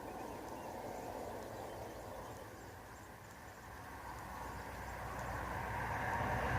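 A passing road vehicle approaching, its low noise growing steadily louder toward the end.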